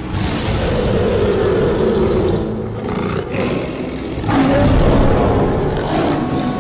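Lion roaring: two long roars of about two seconds each, the second starting about four seconds in and the louder of the two.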